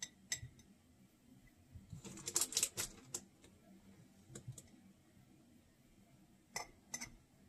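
A metal spoon clicking and scraping against a glass mason jar while spooning and breaking up mushroom grain spawn. The small clicks are scattered, with a quick run of them about two to three seconds in and two more near the end.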